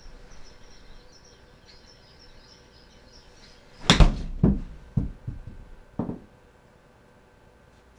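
A 60-degree wedge striking a golf ball off a simulator hitting mat about four seconds in: one sharp, loud crack of the strike and the ball meeting the impact screen, then a few lighter knocks over the next two seconds as the ball drops and bounces. It is a mishit, which the golfer calls a bad strike.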